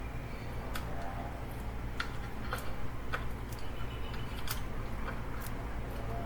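Scattered small clicks and crackles of fingers peeling the double-sided adhesive tape off the edges of a replacement touchscreen digitizer, over a steady low hum.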